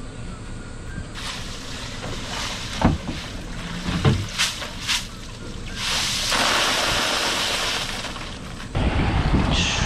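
Ice and meltwater pouring and rattling out of a plastic mesh basket shaken over a cooler, with a few sharp knocks along the way and a loud hissing spill in the second half. Wind buffets the microphone near the end.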